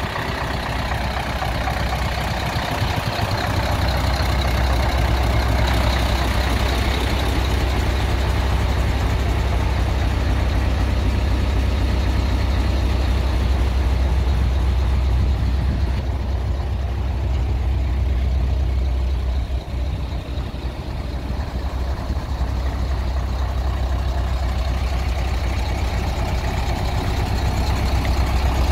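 Mercedes-Benz SK 3538 8x8 tipper's V8 diesel engine idling with a steady low rumble.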